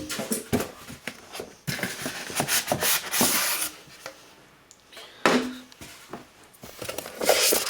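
Rustling of packaging with light knocks and clicks as items are worked out of a box, in irregular spells.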